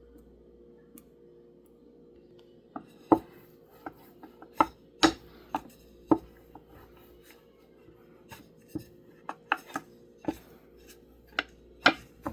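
Irregular sharp clicks and knocks of kitchen utensils at work, about two dozen over several seconds after a quiet start, over a steady faint hum.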